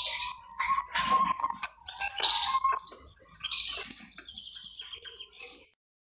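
Male domestic canary singing: quick chirps and rapid trills in short phrases with brief pauses, cutting off suddenly near the end.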